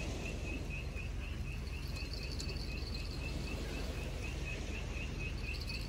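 Insect chirping in an even rhythm, about three chirps a second, over a steady low rumble.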